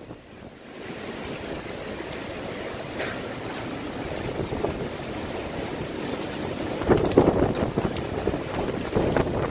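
Storm wind rushing in strong gusts. It builds about a second in and swells loudest around seven seconds in, with another gust near the end.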